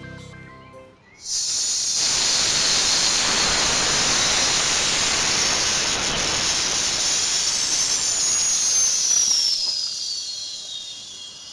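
Gas under pressure hissing loudly and steadily from the cylinder, hose and valve of a home-built fireball machine. It starts abruptly about a second in and fades away near the end, with a thin whistle falling in pitch as the flow dies down.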